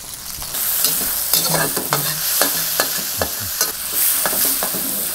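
Pork belly and chicken pieces sizzling in hot oil in a steel wok, the sizzle growing louder about half a second in, with a metal spatula scraping and clacking against the wok as they are stirred.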